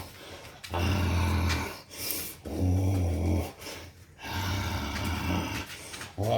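A Collie-Bernese mountain dog mix puppy growling in play while worrying a stuffed toy, in three low growls of about a second or two each.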